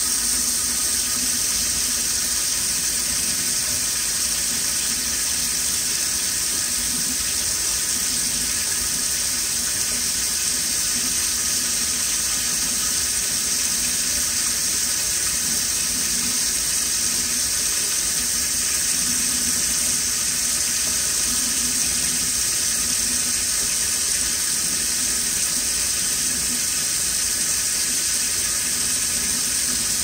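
Water running steadily from a gooseneck faucet in a thin stream, splashing into a stainless steel sink by the drain: an even, unbroken hiss.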